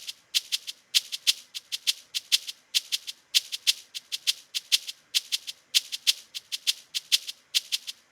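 A programmed Afrobeat shaker loop playing back from FL Studio. Clusters of short, crisp shaker hits repeat in a steady syncopated groove, with no kick drum underneath.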